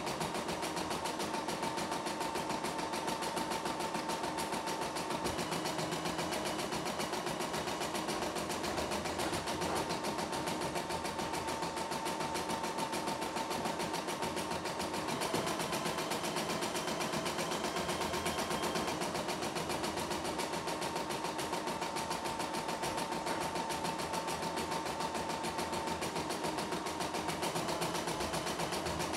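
CNY E960 computerized embroidery machine stitching an embroidery pattern, running steadily with a fast, even rhythm of needle strokes.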